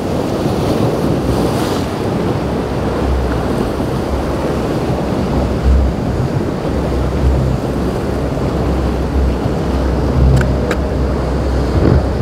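Rough inlet water churning and crashing against a motor yacht's hull as it pounds through steep waves, under heavy wind buffeting on the microphone. The yacht's engines are a low drone beneath the water noise.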